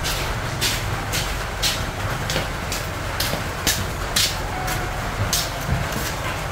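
A green chili being cut into small pieces by hand over a bowl, a kitchen knife drawn against the thumb: a crisp snick with each cut, about two a second, over a steady low rumble.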